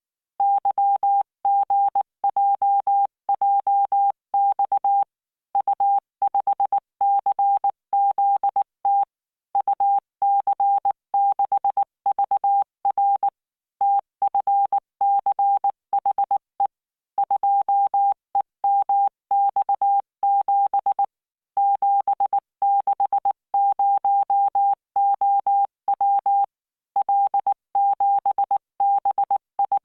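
Morse code practice signal: a single steady beep tone switched on and off in dots and dashes at 19 words per minute, with short gaps between letters and longer ones between words. It is generated by the LearningMorse training program.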